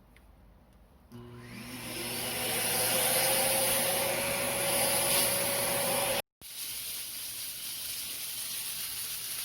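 Vacuum cleaner switched on about a second in: its motor whine rises to speed and then runs steadily under a loud rushing hiss. Just after six seconds the sound drops out for an instant, then carries on as a quieter steady rush.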